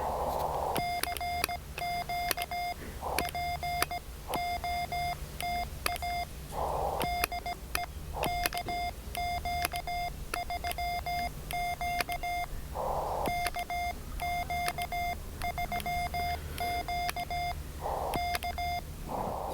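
Morse code CQ call sent on a ham radio transceiver, heard as a steady single-pitch sidetone keyed in brisk dits and dahs. Four short bursts of filtered receiver hiss fall in the gaps between groups.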